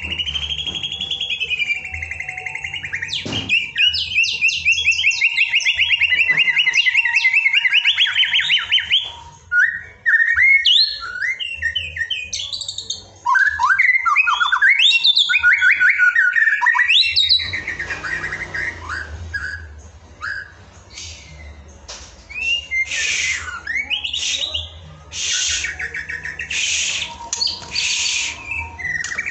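White-rumped shama (murai batu) singing. It opens with a long, fast trill of repeated notes, moves into varied whistled phrases that glide up and down, and ends with harsher, rasping notes in the last third.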